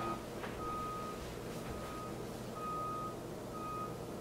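Vehicle reversing alarm beeping: a steady high tone about half a second long, repeating roughly once a second, with one beat missing partway through. A couple of faint clicks come near the start.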